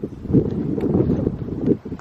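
Wind buffeting the microphone: a gusting low rumble that rises and falls, dipping briefly near the end.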